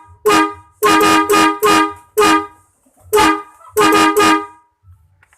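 Horn on a Hino RK bus sounded in a quick rhythmic run of about nine short, loud blasts, with a faint low hum between them.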